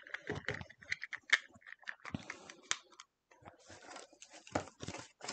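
Small irregular clicks, taps and rustles of scrapbooking supplies being handled on a tabletop, with a few short rasping patches in the second half.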